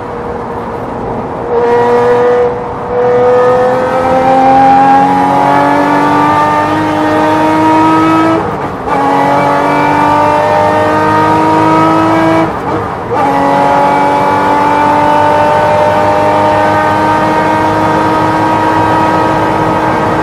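Porsche race car engine at full throttle, heard on board. Its pitch climbs as the car accelerates, with two upshifts, a little before halfway and about two-thirds through, then holds a high, nearly steady note near the end at about 125 mph, over a rush of wind and road noise.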